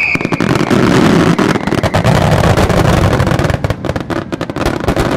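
Finale wide starmine fireworks: a dense, rapid barrage of bursting shells and crackle over a heavy rumble. The cracks thin out to separate bangs in the last seconds.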